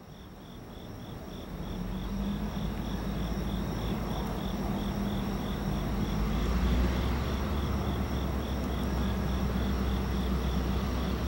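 EMD Geep diesel locomotives running on the head end of a freight train, a low rumble and hum that builds over the first couple of seconds and then holds steady. Crickets chirp in a regular pulse over it.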